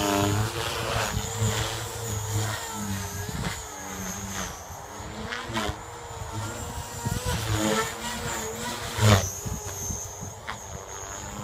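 JR Forza 450 electric RC helicopter with EDGE 353 mm rotor blades in flight. The whine of its motor and gears bends up and down, and the rotor swishes swell repeatedly, loudest about nine seconds in.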